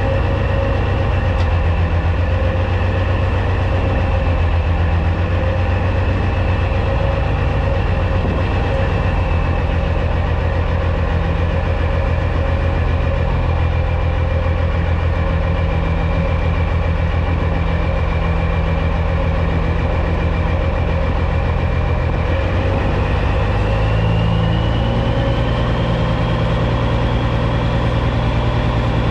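Caterpillar C15 diesel of a Peterbilt 379 semi truck running steadily at low revs, with a thin high whine over the engine note. About 23 seconds in the engine note changes and the whine rises in pitch.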